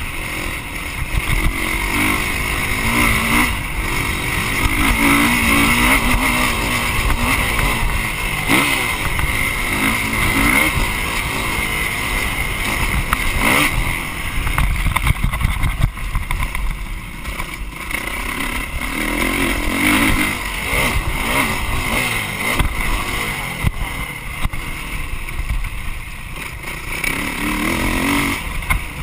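Dirt bike engine revving up and falling back again and again as the rider works the throttle around a motocross track, heard from the bike's handlebar-mounted camera, with rushing noise over it.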